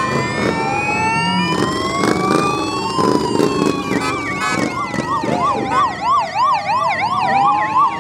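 Police car sirens, more than one sounding at once: slow rising-and-falling wails, then about halfway through a fast yelping warble joins in.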